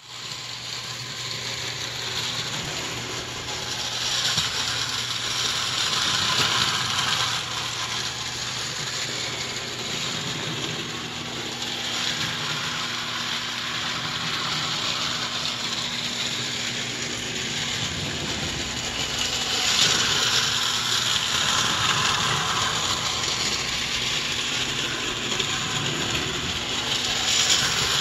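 Bing table-top electric toy train, a late-1920s tinplate set, running around its track: a steady whirr and rattle of the small motor's gears and the tin wheels on tinplate rails. It swells and eases as the train circles the loop.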